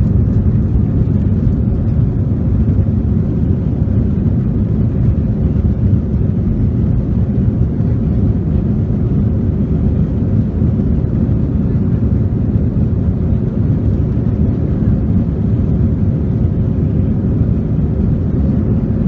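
Cabin noise inside an Airbus A321-200 on the ground: a steady low rumble of the jet engines and airframe, heard through the cabin.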